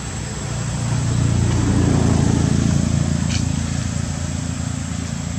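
A motor vehicle passing by: a low engine-and-road rumble that swells to a peak about two seconds in, then fades.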